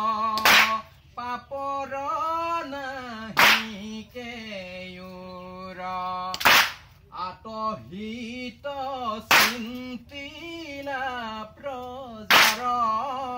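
Group of men and women chanting a devotional Naam Prasang song together, with a large brass cymbal struck with a stick about once every three seconds, five ringing strikes in all.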